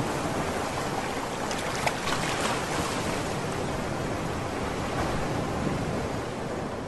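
Steady rushing, surf-like noise with no rhythm or tune, and a faint tick about two seconds in.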